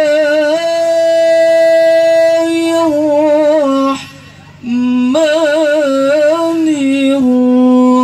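A man reciting the Quran in melodic tilawah style into a hand microphone. He holds long notes decorated with quick wavering ornaments, with a short breath break about four seconds in.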